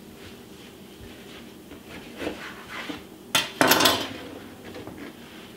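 Kitchen knife cutting an orange into quarters, with soft knocks of the blade on the cutting board and a louder clatter a little past the middle.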